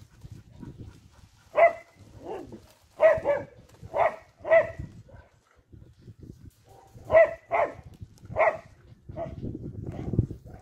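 Dog barking: about eight short, loud barks in two bursts, a pause of a couple of seconds between them.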